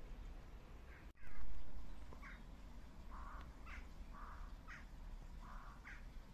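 Birds giving short calls, one every half second to a second, over a steady low rumble. A loud low bump comes about a second in.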